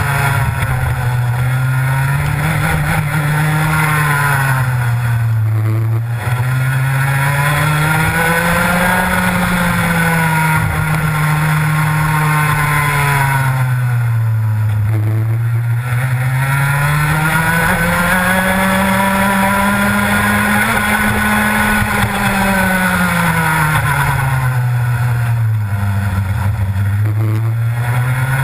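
Rotax Max 125cc two-stroke kart engine heard onboard at racing speed. Its pitch drops three times as the driver lifts off for corners, and climbs again each time on the following straight.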